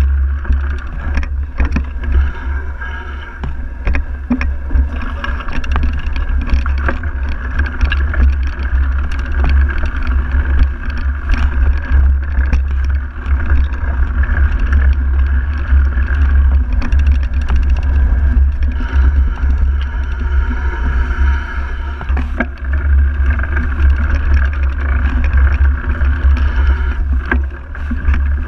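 Mountain bike riding a bumpy dirt trail, heard through a handlebar-mounted camera: a heavy steady rumble of wind and frame vibration with the hum of knobby tyres on dirt, broken by frequent short knocks and rattles from bumps.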